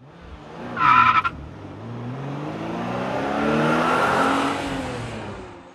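Car sound effect: a short tyre screech about a second in, then an engine note that rises in pitch and loudness and falls away again, fading out at the end.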